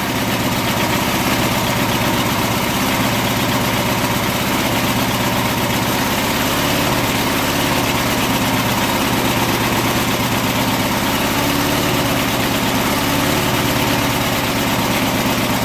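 Small single-cylinder four-stroke lawn mower engine running steadily, with car wax in its crankcase in place of oil. The speed wavers slightly.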